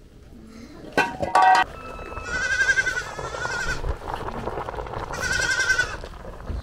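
A goat bleating repeatedly: a couple of short calls about a second in, then two long, wavering bleats.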